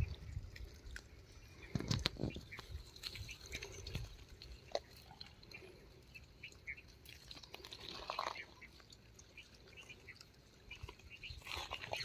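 Gray langurs feeding on tomatoes over gravelly ground: faint, scattered clicks and rustles with a few louder ticks, including a sharp one about two seconds in.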